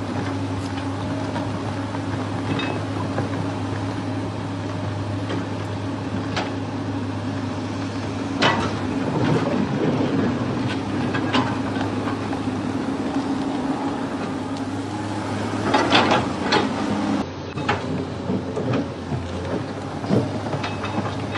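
A steady low mechanical hum with a few sharp knocks and clatters over it, the busiest cluster of knocks about three quarters of the way through.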